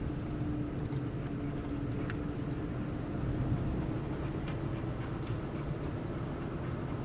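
Car driving at a steady speed: even road and engine noise with a steady low hum.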